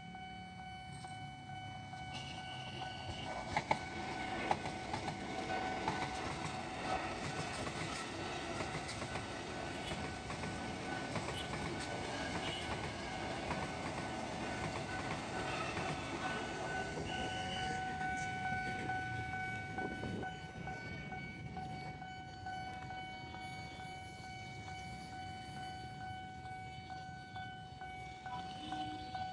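Tokyo Metro 6000 series electric commuter train passing, a rumble of wheels on rails with clicking over the rail joints, loudest from about 2 to 20 seconds in and then fading. A steady high tone runs underneath throughout.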